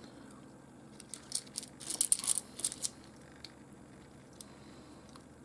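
Small pieces of rough opal being handled, clicking and tapping lightly against each other, with a flurry of light clicks between about one and three seconds in and a few isolated ticks later.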